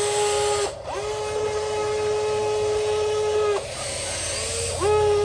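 Small electric motor of a homemade RC excavator whining as it runs, cutting out and starting again about three times. Each start sweeps quickly up in pitch and then holds steady.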